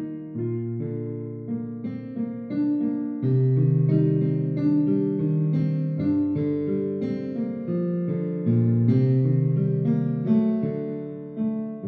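Solo piano background music: a slow, gentle melody over lower chords.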